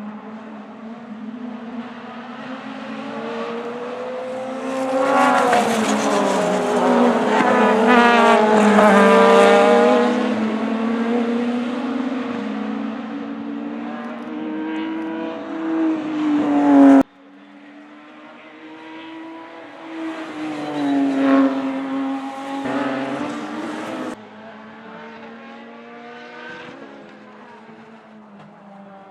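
Race car engines running at speed past the track: the engine note swells to a loud peak and drops in pitch as a car goes by. The sound cuts off abruptly twice, each time to another car passing.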